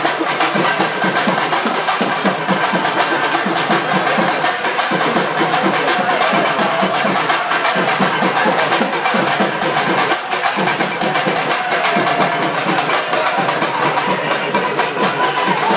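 Fast, continuous drumming from a procession's percussion band, with steady held tones sounding above the beat.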